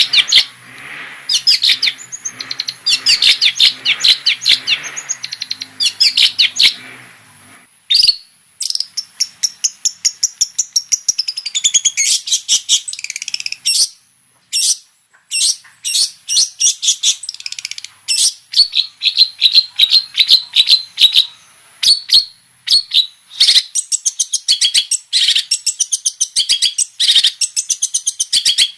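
Long-tailed shrike (cendet) singing a fast, chattering song of rapid high chirps and scratchy whistled notes, in long unbroken runs. About 8 s in the song breaks off briefly and resumes in a new phrase.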